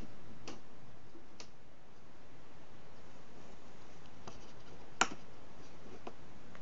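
Light clicks and taps of wooden puzzle pieces being handled and rubber bands being worked into their notches, with one sharper click about five seconds in.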